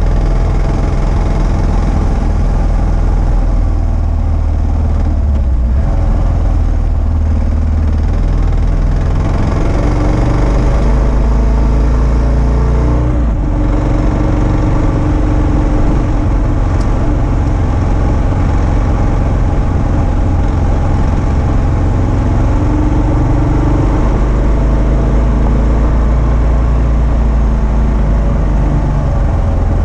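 2022 Kawasaki KLR650's single-cylinder engine running under way on a gravel road. Its pitch shifts a few times with throttle changes, with a brief dip about halfway through.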